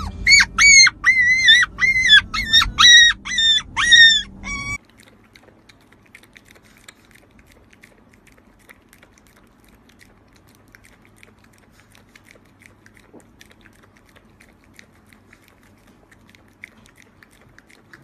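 Puppy whining in a quick run of high-pitched whines, about two a second, cutting off suddenly about five seconds in. After that, only faint wet licking and lapping from a small dog at a thick drink.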